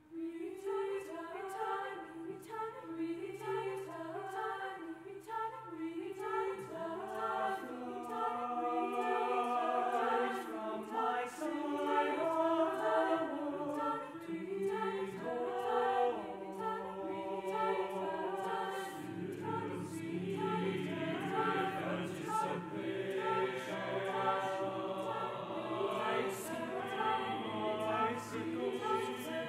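Mixed chamber choir singing a cappella, all voices coming in together at once. About two-thirds of the way through the low voices grow much fuller.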